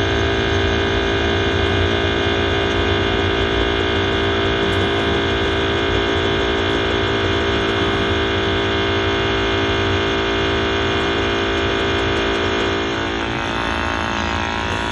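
Glow-worm Easicom3 28c gas combi boiler running under test, its burner fan giving a steady hum with several held tones, being turned down from maximum to minimum rate. The hum gets a little quieter about 13 seconds in.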